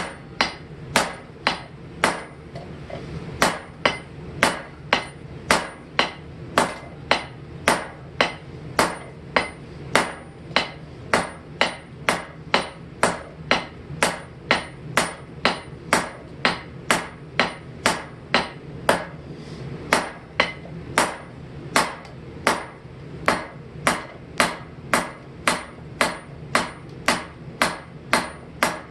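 Blacksmith's hand hammer striking a hot steel hammer head on an anvil in steady, even blows, about two a second, each with a short metallic ring. The head is being forged thinner, worked from the second side to keep it even.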